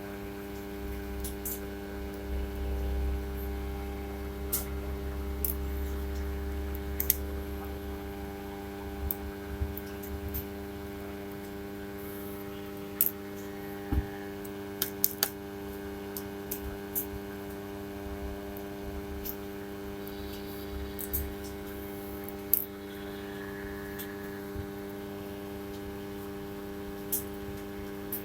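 Small tools and parts clicking and tapping against a smartphone's casing during disassembly, in sharp scattered clicks, over a steady electrical hum.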